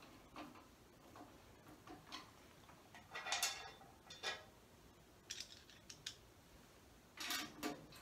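Rack screws being turned by hand with a screwdriver into the metal rails of a network rack: scattered light clicks and a few short metallic scrapes, the loudest about three seconds in and near the end.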